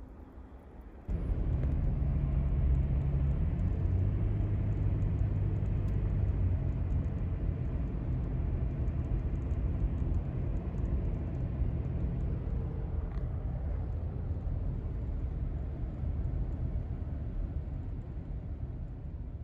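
Steady low rumble of a vehicle engine that cuts in suddenly about a second in and slowly fades near the end.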